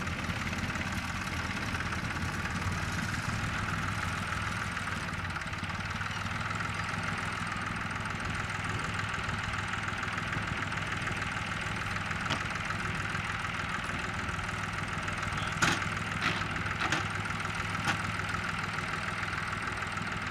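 Westland Lysander's nine-cylinder Bristol Mercury radial engine running steadily at low power. A few sharp clicks come near the end.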